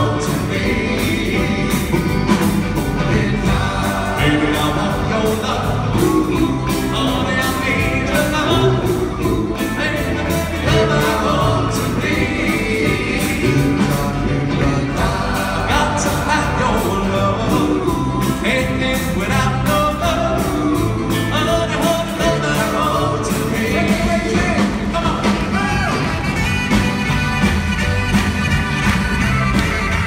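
Doo-wop vocal group singing live in harmony, backed by a band of keyboards, drums, electric guitar, bass and saxophone.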